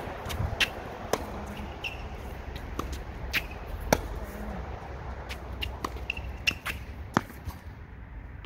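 Tennis balls struck by rackets and bouncing on court: a string of sharp knocks of varying loudness at uneven intervals, with a couple of short high squeaks, over a low steady rumble.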